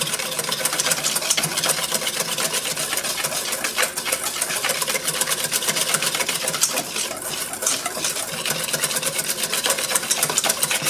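Wire whisk beating an uncooked egg-yolk mixture in a small stainless steel saucepan: a fast, steady clatter of the wires against the metal pan.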